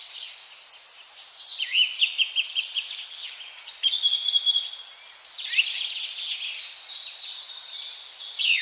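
Several songbirds singing at once, their overlapping high chirps, whistles and trills running on without a break. Fast runs of repeated notes come about two seconds in and again around four seconds.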